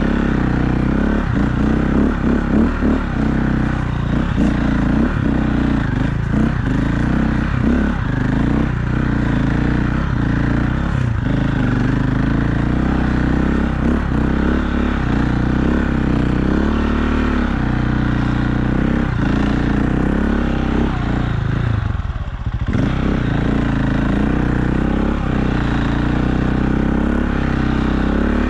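2001 KTM EXC 400 dirt bike's four-stroke single-cylinder engine running under load while being ridden, with frequent clattering knocks through the first half. About three quarters through the engine sound briefly drops, then picks up again.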